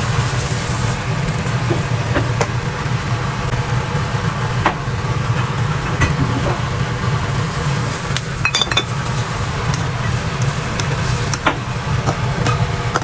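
Fish in broth boiling hard in a wok, under a steady low rumble, with scattered light clinks and knocks of a sauce bottle and a spatula against the pan.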